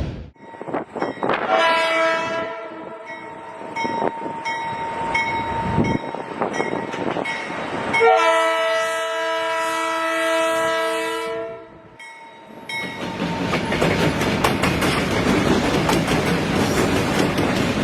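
Full-size train sound effect: a train horn gives a short blast about two seconds in and a longer blast from about eight seconds. Under it the train rolls with steady rumble and clicking wheels, and the clicking gets busier and louder near the end.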